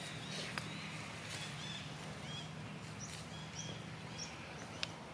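Short high-pitched chirping calls repeating every half second or so over steady outdoor background noise with a low hum. There is a sharp click about half a second in and another near the end.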